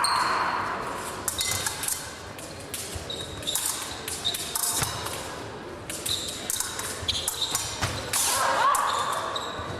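Épée blades clicking and ringing against each other while fencers' feet thump on the piste, in an echoing hall with a murmur of voices.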